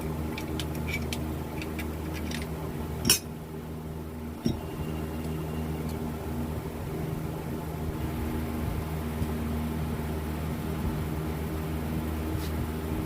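Small metal clicks and taps of alternator parts and tools being handled during assembly, with a sharp knock about three seconds in and a lighter one a second later, over a steady low hum.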